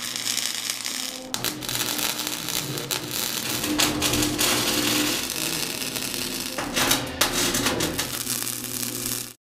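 Lincoln flux-core wire-feed welder arc crackling and sizzling as steel bolt tabs are welded onto the steel hull, over a steady low hum. It starts thin, grows dense about a second in, and cuts off just before the end.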